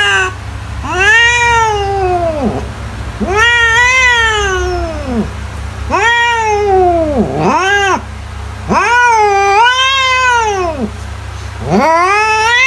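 Domestic cat meowing: a series of long drawn-out meows with short gaps between them, each rising and then falling in pitch.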